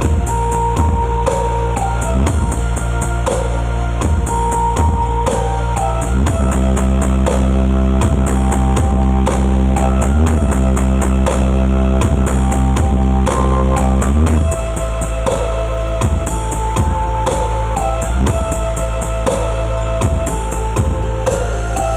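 Loud rock-style music with a drum kit, guitar and heavy bass, played through a large sound system during a sound check.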